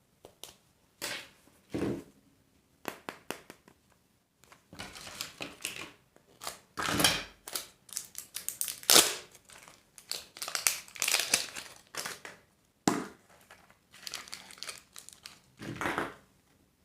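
A candy wrapper being torn open and crumpled by hand, crinkling in irregular bursts with a few sharper cracks.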